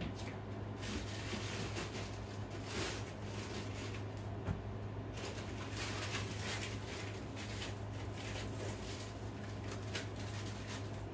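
Rustling and knocking of frozen food bags being rummaged through in a freezer, over a steady low hum.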